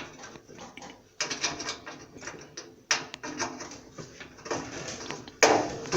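Clicks and rattles of metal and plastic parts being handled, as wire spade connectors are pushed onto the terminals of an electric dryer's heating element, with a sharper knock near the end.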